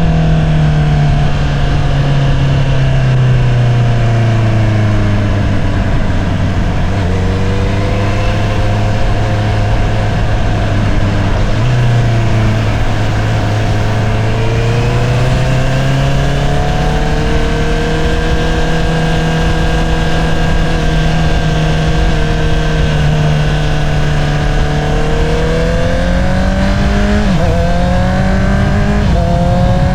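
2022 Honda CBR650R's inline-four running through an Akrapovič single-outlet exhaust. It eases off with the pitch falling, holds a low steady cruise, and builds revs again. Near the end there are two quick upshifts, each a sudden drop in pitch. A steady rush of wind and road noise runs underneath.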